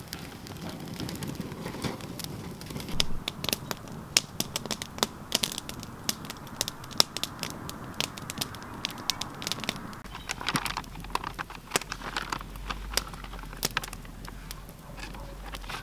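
Wood campfire crackling, with many sharp pops throwing sparks.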